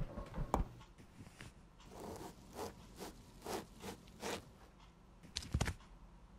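A kitchen knife saws through a slice of wooden 'toast' in about six scraping strokes, roughly two a second. A single sharp knock comes near the end.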